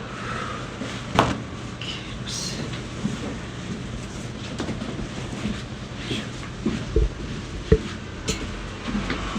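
Sounds of a chiropractic spinal adjustment: one sharp crack about a second in, then a few low thuds around seven to eight seconds in, over a steady background hum.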